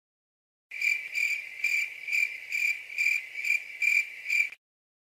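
Cricket chirping sound effect: a high, steady trill pulsing about twice a second, nine chirps. It starts under a second in and cuts off cleanly about half a second before the end.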